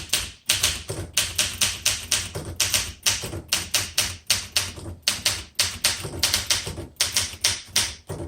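1966 Olympia SM9 manual typewriter being typed on: a quick run of type-bar strikes, about five a second, with short pauses between words.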